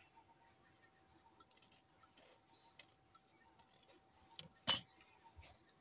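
Large metal scissors cutting through thin saree cloth: quiet scattered snips and clicks of the blades, with one louder snip about three-quarters of the way in.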